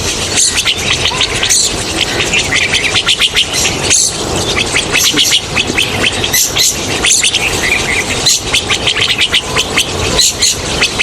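A flock of rosy starlings chattering without pause, a dense run of short high notes.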